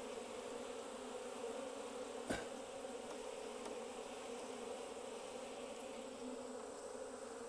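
Japanese honeybees buzzing steadily around an open hive box and its frames, with one short knock about two seconds in.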